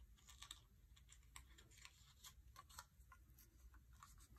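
Near silence, with faint scattered ticks and rustles of fingers handling a satin ribbon and a cardstock tag.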